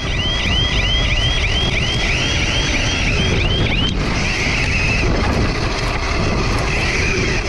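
Arrma Mojave RC truck driving fast over rough grass, heard from a GoPro mounted on its side: wind rushing on the microphone and the rumble of the ride. A high chirp repeats about four times a second, and about halfway through it gives way to a steadier high whine.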